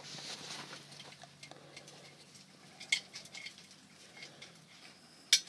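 A raccoon washing a leash in a metal pot of water: soft splashing, then scattered light clicks and clinks against the pot, with a sharper clink near the end.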